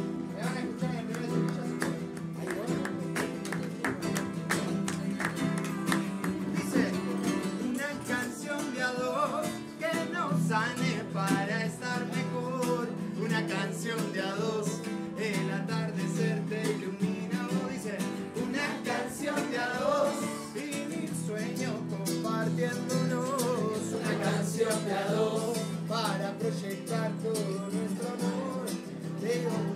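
Acoustic guitar strummed in a steady rhythm, with hand claps keeping time along with it. Through the middle, a voice sings a melody over the guitar.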